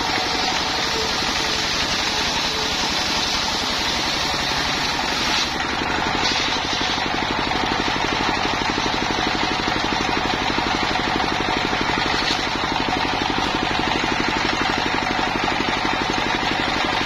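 Single-cylinder stationary diesel engine running steadily with a fast, even thudding, driving the circular saw blade of a homemade sawmill as a log is fed through it.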